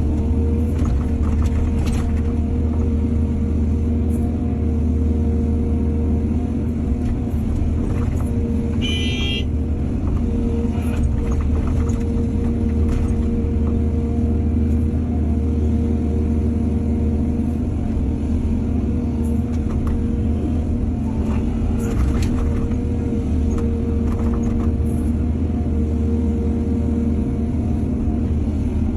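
A heavy diesel excavator engine runs steadily at working load, with scattered knocks and clanks as it works. There is a brief high squeal about nine seconds in.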